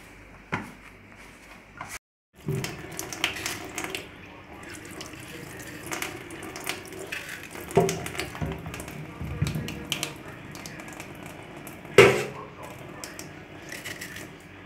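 Tap water running into a stainless steel sink while green bananas are peeled under the stream, with scattered knocks of the fruit and hands against the sink, the loudest about twelve seconds in. Before a short break about two seconds in, a hand works flour in a metal bowl.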